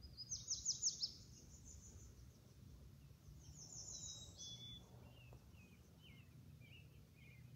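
A songbird singing: a quick run of high, down-slurred notes about a second long near the start and again about four seconds in, followed by softer, lower chirps.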